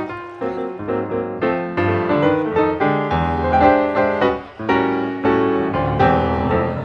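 Piano music, with a steady run of notes.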